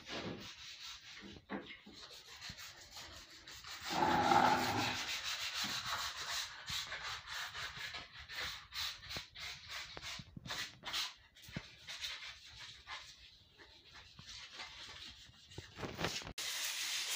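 Irregular rubbing and scraping strokes on wet floor tiles, the sound of splashed paint being scrubbed off the tiles, louder for a second or so about four seconds in.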